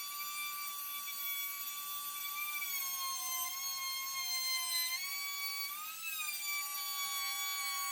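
Electric power tool motor whining at high speed. Its pitch sags for a couple of seconds, as a motor does when it bears into the cut, then climbs back near the end.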